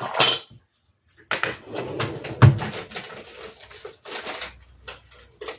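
Craft tools handled on a cutting mat: an ink blending tool and a small ink pad are set down and picked up. Scattered clicks and knocks with rustling, the sharpest knock about halfway through.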